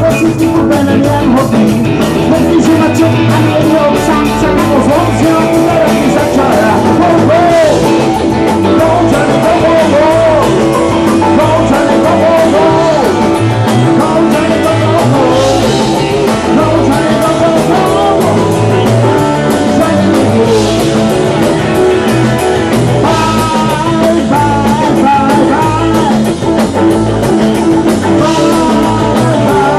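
Live blues-rock band playing: electric guitars over a drum kit, with a lead line that bends up and down in pitch.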